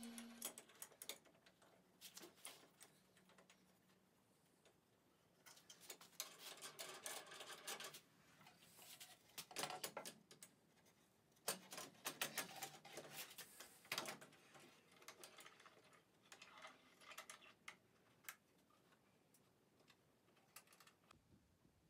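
Faint, irregular clicks and knocks from hands handling walnut boards and metal bar clamps, in short clusters separated by near-silent gaps.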